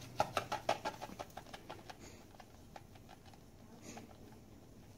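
Salt shaken from a canister onto a ball of ice in a steel pot: a quick run of light ticks and patter for about two seconds, then a few scattered ticks.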